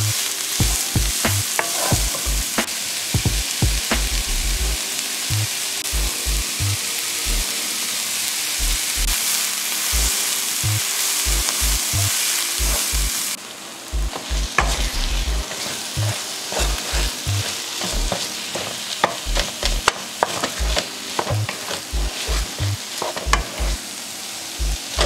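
Chopped leek sizzling in oil in a non-stick frying pan, stirred and scraped with a wooden spatula in quick strokes. About halfway through the sizzle drops abruptly, and fried rice with egg is stirred and scraped in the pan, frying more quietly.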